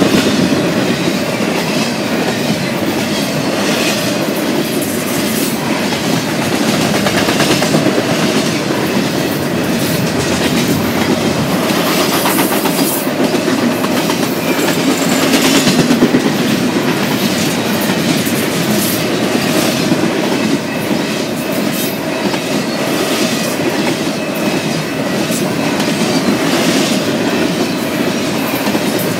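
Double-stack intermodal well cars of a freight train rolling past: a steady rumble of steel wheels on rail, with irregular clicks and clanks from the wheels and cars.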